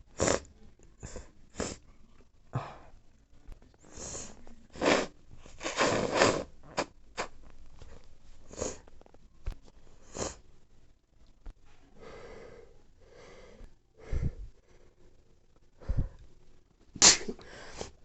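A person sneezing again and again, messy sneezes, with sniffles and breaths between them; the biggest come about five to six seconds in and again near the end.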